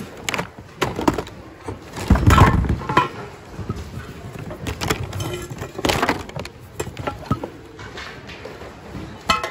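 Hands rummaging through a bin of mixed secondhand goods: items knocking and clattering against each other and the plastic bin, in irregular clicks and knocks, with a heavier thump about two seconds in.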